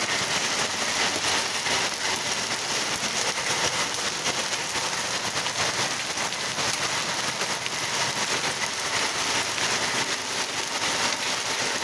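Small hailstones falling steadily onto wet asphalt and brick paving: a dense, even hiss made of countless tiny ticks, with no let-up.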